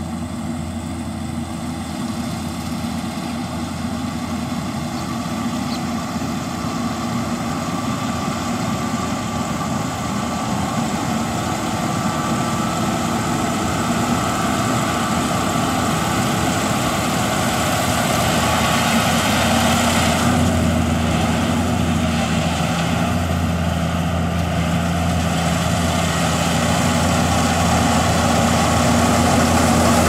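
Yanmar AG600A rice combine harvester's diesel engine running steadily while it cuts and threshes the crop, growing gradually louder as the machine approaches.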